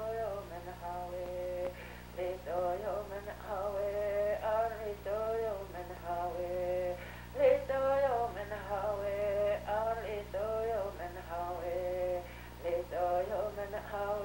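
Singing on the soundtrack, a melody in short repeated phrases, over a steady low hum.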